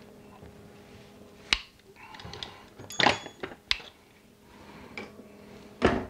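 Hand tools handled on a steel cable and its crimped ferrule: a few sharp metallic clicks and clacks, one about a second and a half in, a cluster around three seconds, and a loud one just before the end.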